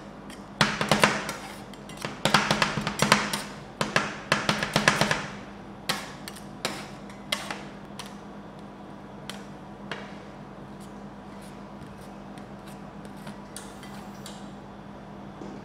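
Two steel spatulas chopping and mashing dried persimmon into ice cream on the frozen steel pan of a rolled-ice-cream machine: rapid metal clacks for about five seconds, then a few single taps, then quiet spreading over a steady low hum.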